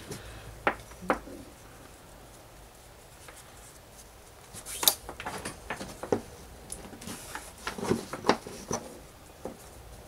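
Hands working nylon paracord through a cobra weave, with the cord rubbing and being pulled tight and light clicks and taps of handling; a few taps in the first second, a lull, then a run of clicks and rustles from about halfway through.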